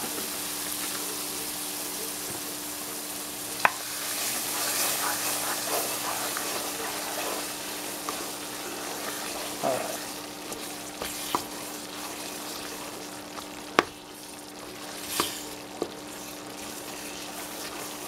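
Diced white onion sizzling in a hot dark roux in an enamelled Dutch oven while a wooden spoon stirs it through. A few sharp knocks of the spoon against the pot stand out.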